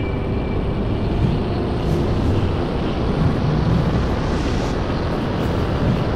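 A loud, steady rushing rumble, a whoosh-like sound effect, strongest in the low end.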